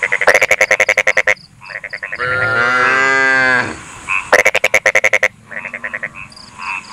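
Frogs croaking in two loud rapid pulsed trains, with softer short croaks between. In the middle a cow gives one long moo, rising and falling in pitch.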